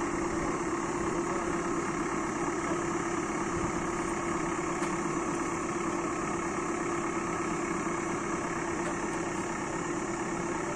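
Excavator's diesel engine idling steadily, a constant hum with one unchanging tone.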